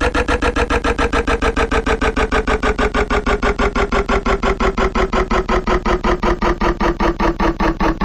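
Washing machine running with a loud, even pulsing beat, about seven a second, each beat carrying a pitched tone; the pitch and the beat slowly drop, as the drum slows.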